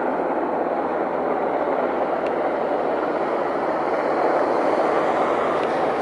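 Sikorsky Black Hawk-type helicopter flying past, its rotors and turbines giving a steady noise that swells slightly about four to five seconds in.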